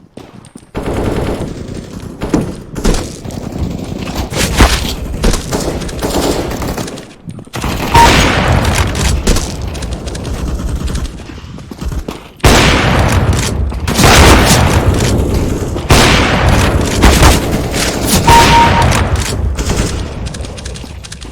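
Gunfire in a shooter video game: rapid automatic fire and single shots in dense bursts, with short lulls about 7 and 12 seconds in.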